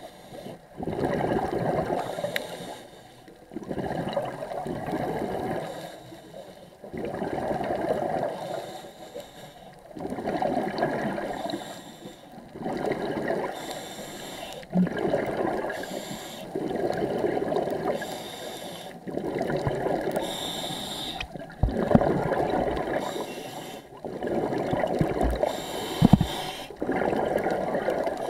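Scuba diver breathing through a regulator underwater: a bubbling, gurgling rush of exhaled bubbles every three seconds or so, with quieter gaps for the inhalation between.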